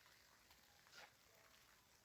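Near silence, with one faint short click or rustle about a second in.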